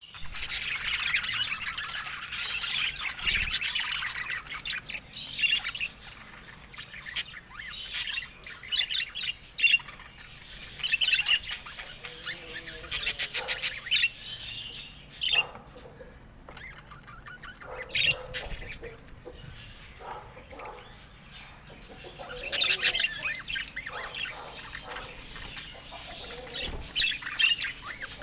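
Pet birds chirping, chattering and squawking continuously, in bursts of busy warbling with short runs of rapid clicky chatter, separated by quieter stretches.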